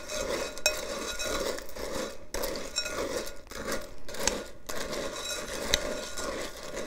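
Metal spoon stirring crunchy cereal and milk in a glass bowl, with a few sharp clinks of the spoon against the glass.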